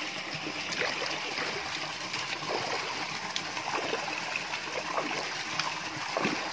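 Feet kicking in swimming-pool water, making small irregular splashes over a steady rush of water pouring into the pool from an inlet pipe.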